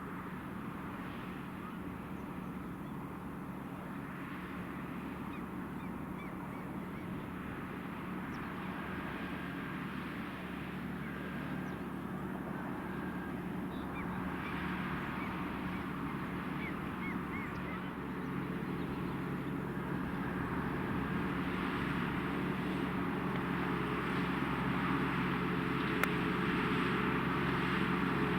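Valtra T.153 tractor's six-cylinder diesel engine running steadily under ploughing load, growing gradually louder as it comes closer. Gulls call over it now and then.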